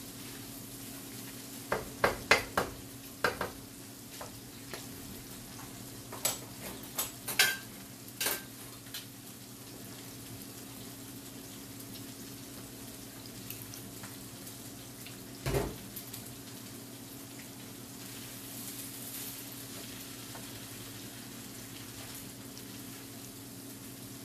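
Fried rice stir-frying in a nonstick pan: a steady low sizzle, with a wooden spatula knocking and scraping against the pan in a quick run of knocks about two seconds in and another around six to eight seconds in, and one heavier thump about fifteen seconds in.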